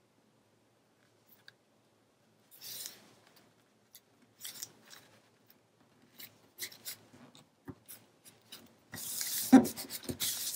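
Paper and cardstock rustling and rubbing as the sheets are slid into place and pressed and smoothed down by hand. The rustles come in short spells at first and get busier and louder near the end.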